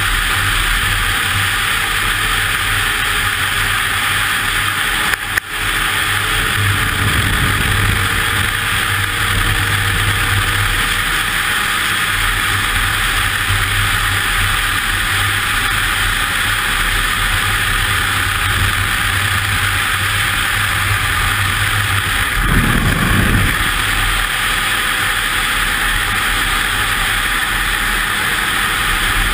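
Ski-Doo snowmobile running at speed along a snowy trail, a steady engine and track drone, with a brief dip about five seconds in and a short extra low rumble about three-quarters of the way through.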